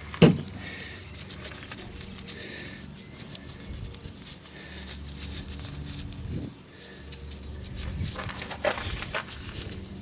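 Nitrile-gloved fingers rubbing and scraping at a carburetor jet needle to work the varnish off it: a continuous scratchy rubbing, with a sharp knock just after the start.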